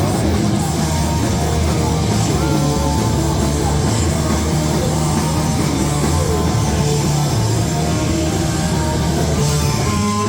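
Punk rock band playing loud: distorted electric guitar, bass and drum kit pounding on without a break.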